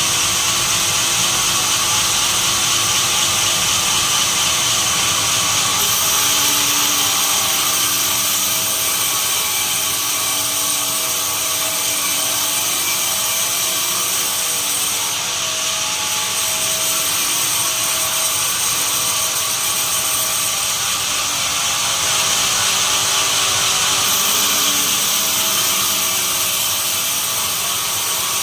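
Benso sawmill machine running and sawing pine: a loud, steady, high-pitched machine whine. The highest part of the sound swells several times, around 6, 15 and 20–24 seconds in.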